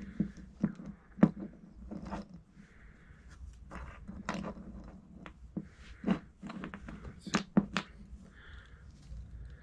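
Irregular clicks and light knocks of a small metal G-clamp and N gauge locomotive wheel-and-axle parts being handled and positioned on a work surface. The sharpest knocks come about a second in and again near the end.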